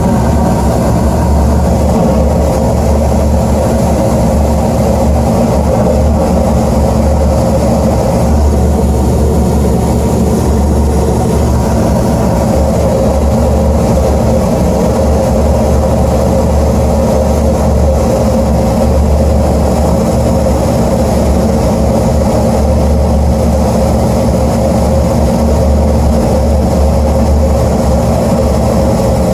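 Gas furnace running with its burners lit and blower on: a loud, even hum that holds steady throughout. It is an early run after startup, burning off oil in the heat exchanger.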